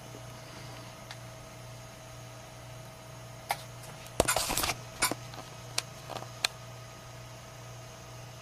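Camera handling noise: a handful of sharp clicks and light knocks in the middle, with a cluster about four seconds in, over a low steady hum.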